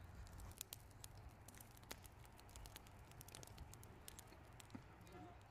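Near silence: faint night-time ambience with a low hum and scattered light clicks.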